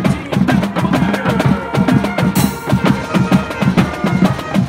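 Marching band pep music: a drumline of snare and tenor drums playing quick stick strokes to a steady beat, with brass holding notes and a cymbal crash about two seconds in.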